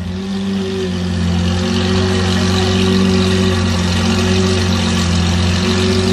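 Lamborghini Aventador V12 engine running with a steady, unchanging pitch, growing louder over the first two seconds and then holding.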